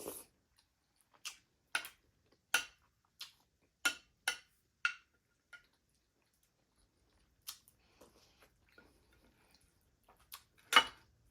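Close-up eating sounds: a string of sharp, wet mouth smacks and clicks while chewing, about one or two a second for the first half, then sparser and fainter, with one louder smack near the end.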